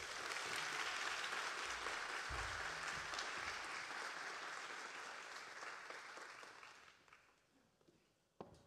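Small audience applauding, dying away after about seven seconds, followed by a single sharp knock near the end.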